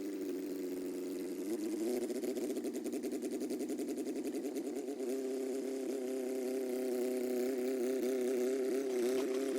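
Small 1950s bulldozer's gasoline engine running steadily with an even, rapid pulsing while the machine works. Its pitch steps up slightly about two seconds in and again about five seconds in.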